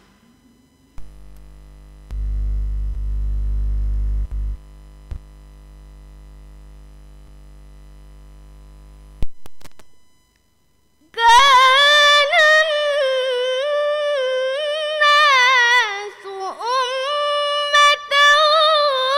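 A low steady hum starts about a second in, is louder for a couple of seconds, and cuts off about nine seconds in. Then a girl begins reciting the Quran in the melodic tilawah style, with long held, wavering, ornamented notes.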